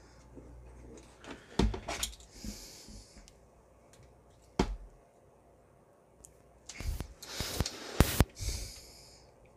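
Hard plastic toy parts clicking and knocking as they are handled and pushed together, with the loudest snaps around eight seconds in. Two short breaths out through the nose come through between the clicks.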